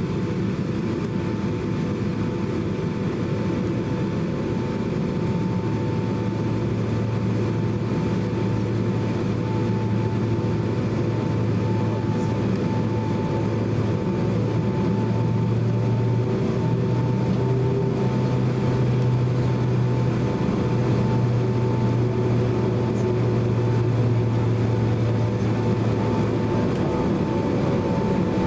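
Cabin noise of a Boeing 767-300ER jet airliner taxiing: its engines' steady hum and rush with a constant whine. A deeper drone comes in about five seconds in and drops away near the end.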